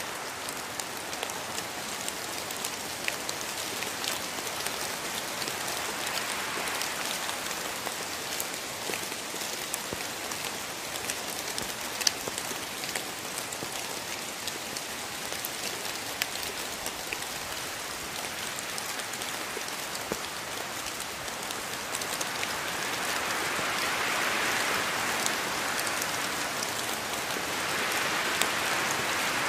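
Steady rain in a rainforest: a dense hiss with many separate drop ticks, growing louder over the last several seconds.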